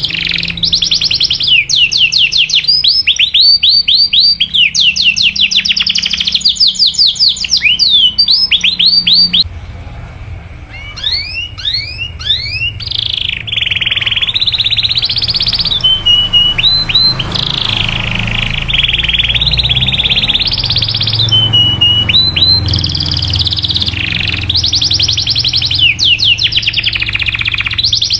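Domestic canary singing: fast series of rapid rising chirps, then, after a brief lull about ten seconds in, long rolling trills with short held notes.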